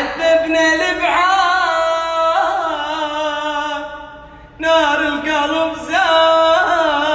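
Unaccompanied singing in Yemeni style: long held, wavering notes in a wordless opening phrase, fading briefly about four seconds in and then taking up again.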